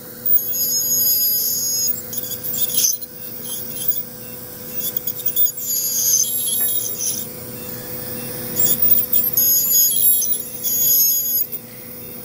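Ultrasonic dental scaler whining at a high pitch in on-and-off stretches as its water-cooled tip scales tartar from under a dog's gum line.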